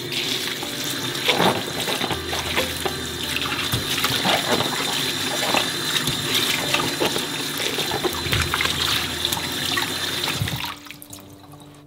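Kitchen tap running into a glass bowl of vegetables in a stainless steel sink, with splashing as eggplants are rubbed clean under the stream. The flow stops near the end.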